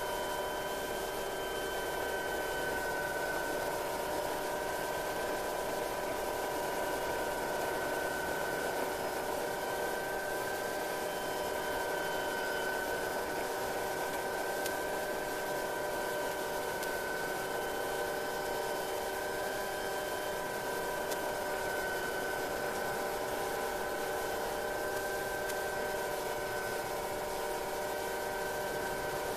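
MD500 helicopter's turbine and transmission heard from inside the cockpit: a steady whine of several high tones over a noise haze, unchanged through the approach and landing.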